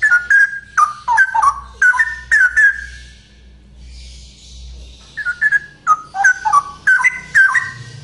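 Male straw-headed bulbul singing loudly: two runs of quick whistled notes, with a pause of about two seconds between them.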